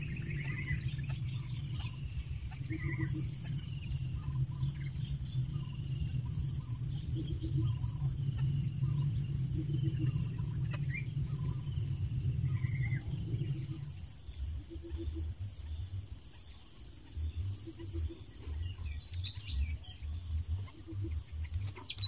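Steady high-pitched insect chorus with short bird chirps every few seconds and a run of quick falling chirps near the end. A low rumble runs beneath it and stops about two-thirds of the way through.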